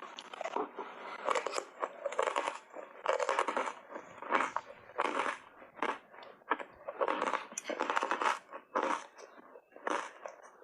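Hard ice bars coated in matcha powder being bitten and chewed close to the microphone, a run of sharp crunches coming about one or two a second.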